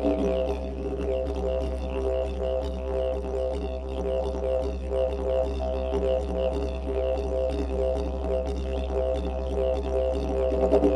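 Background music built on a steady low drone, with held notes and a pulsing rhythmic texture above it.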